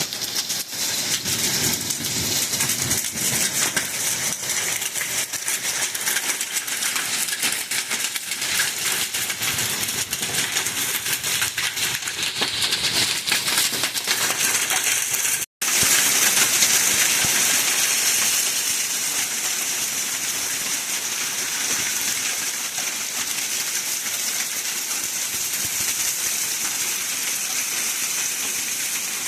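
Hailstorm with rain: a dense clatter of hailstones striking hard surfaces over the hiss of heavy rain. It cuts out for an instant about halfway through, then comes back as a smoother, steadier hiss.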